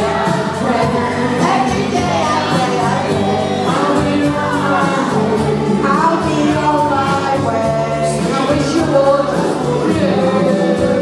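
Two women singing a duet live into a shared handheld microphone over backing music with a steady beat.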